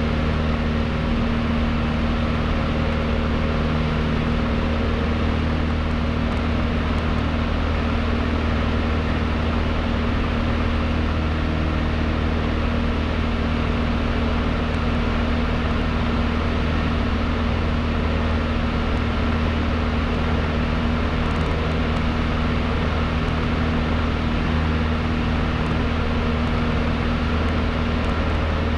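Cessna 152's four-cylinder Lycoming O-235 engine and propeller running steadily at an unchanging pitch in flight, heard from inside the cabin over a hiss of airflow.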